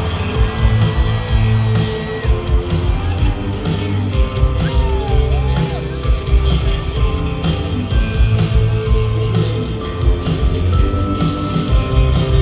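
Live rock band playing through a large venue's sound system, heard from among the audience: drum kit keeping a steady beat under electric guitars and bass guitar.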